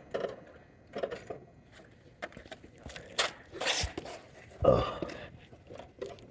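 Car jack being worked to lift the mower: scattered metal clicks and scrapes, with a louder clunk about three-quarters of the way through.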